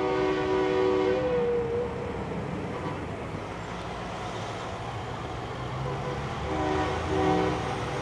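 Big rig trucks rumbling past at low speed. Near the end a truck's multi-tone air horn sounds twice, a chord of several pitches with a short break between the blasts.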